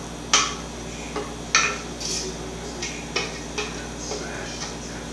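A spoon clinking and tapping against a clear measuring cup while stirring or scooping: about half a dozen sharp, irregular clicks, over a steady low hum.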